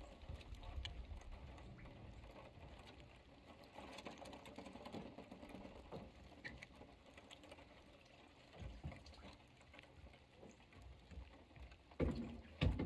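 Faint, scattered clicking and scratching of crawfish moving around inside a wire-mesh crawfish trap, with two heavier thumps near the end.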